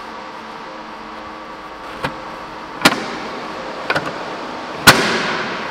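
Plastic aero wheel cover being pressed and knocked onto a Tesla Model 3 wheel: several sharp clacks as it seats, the last and loudest near the end.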